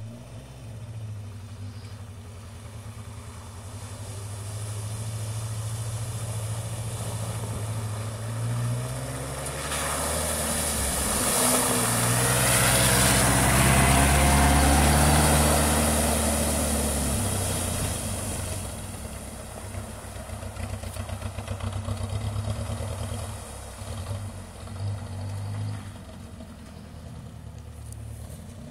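UAZ-452 van's engine running as the van drives through a waterlogged, muddy track, growing louder as it approaches and passes close by about halfway through, with a rush of water and mud from the tyres at its closest, then fading as it moves off.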